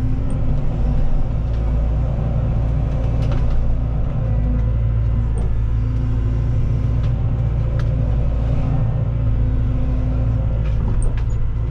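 Cat 313 excavator's diesel engine running steadily under hydraulic load, heard from inside the cab. Scattered short cracks and snaps come through as the bucket and thumb break and push tree limbs and brush.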